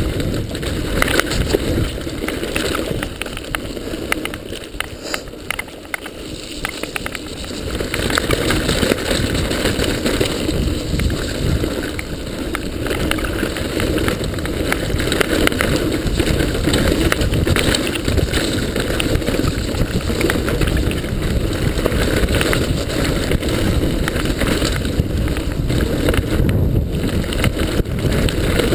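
Mountain bike descending a rough dirt forest trail at speed: wind buffeting the microphone, tyres rumbling over dirt and roots, and constant rattles and knocks from the bike. The noise drops for a few seconds about five seconds in, then picks up again.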